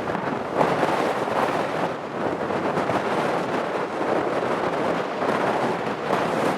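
Strong wind blowing across the microphone over the rush of heavy surf, a dense noise that swells and eases.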